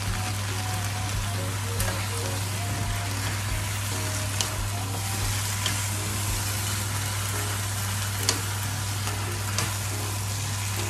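Chicken pieces with onions, carrots, potatoes and bell pepper sizzling steadily in oil in a nonstick wok while being stirred and turned with a wooden spoon and a spatula, with a few sharp clicks of the utensils against the pan.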